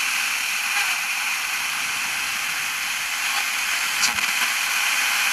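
Static hiss from a portable radio's FM band as its tuning wheel is turned by hand, with one short blip out of the static about four seconds in.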